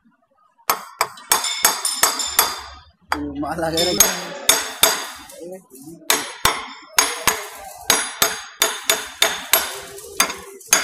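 Repeated metal-on-metal hammer blows on a steel rod held against a timing gear of a Kirloskar 4R-1040 four-cylinder engine's gear train, driving the gear into position. Each blow rings brightly. The blows are irregular at first and come about two a second in the second half.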